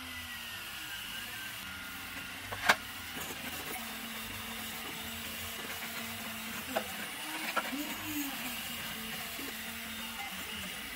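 A 3D printer's stepper motors running steadily, with short whirs that slide up and down in pitch as the printer moves. A sharp click of hard plastic parts being handled comes about two and a half seconds in, with a few lighter clicks later.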